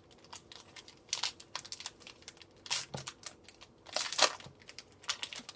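A baseball card pack's wrapper torn open and crinkled by hand, in irregular rustles and crackles. The loudest crackling comes about four seconds in.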